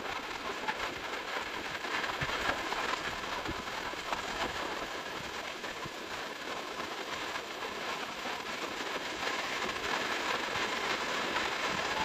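Gentle surf washing onto a sandy beach: a steady rushing hiss.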